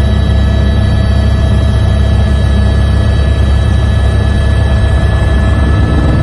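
Helicopter in flight, heard from inside the cabin: a loud, steady low drone of rotor and engine with a constant high whine over it.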